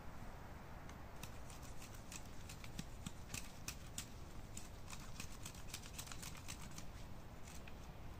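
Knife cutting and trimming green spruce branches: an uneven run of small, sharp cuts and clicks, several a second, over a faint steady background hiss.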